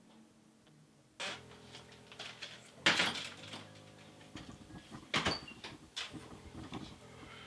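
Wooden front door being opened and pushed shut as someone comes in, a string of sharp knocks and clatters, loudest about three and five seconds in.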